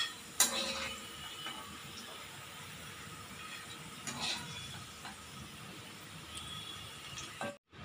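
Bitter gourd pieces frying in hot coconut oil: a steady sizzle. A slotted metal spoon clinks three times against the pan and a steel plate as the crisp pieces are lifted out, about half a second in, around four seconds and near the end.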